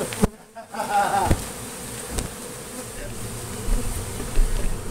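Honey bees buzzing in numbers around a hive, a steady hum of many bees in the air; the colony is stirred up and stinging. A couple of low thumps come near the end.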